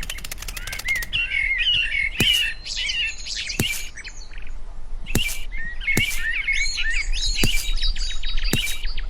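Small birds chirping with quick, busy twitters, and sharp taps about once a second.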